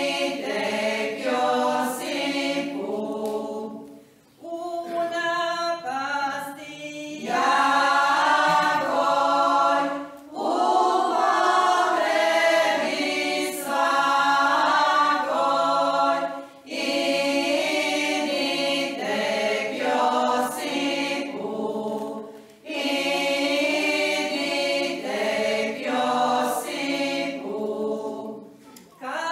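Women's folk choir singing a Croatian church folk hymn unaccompanied, in phrases of about six seconds with a short breath between each.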